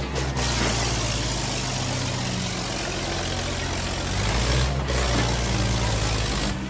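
Diesel tractor engine running steadily under load as it hauls a heavily weighted trolley, with a low drone that shifts in pitch around four to five seconds in, over a constant wash of crowd noise.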